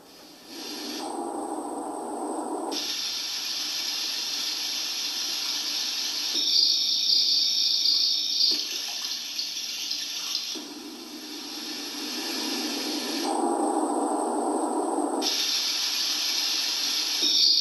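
Built-in nature sounds of a 4moms Mamaroo baby seat playing through its small speaker: a steady, water-like rushing noise that changes in character every few seconds.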